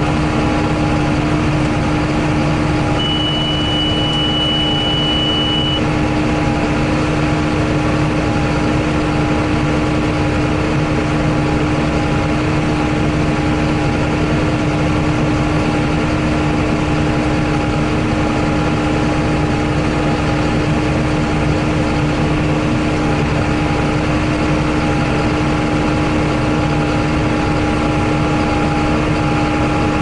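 John Deere 8100 tractor's six-cylinder diesel engine running steadily, heard from inside the cab, while pulling a John Deere 466 baler along a windrow. A steady high-pitched beep sounds for about three seconds, starting a few seconds in.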